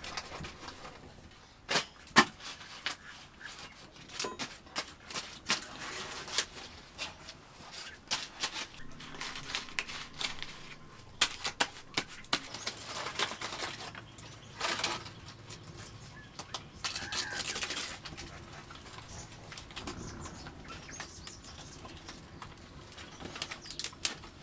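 Irregular sharp crackles and clicks from a wood fire burning in a clay stove, the two loudest about two seconds in. Midway there are stretches of leaf rustling, with pigeons cooing faintly in the background.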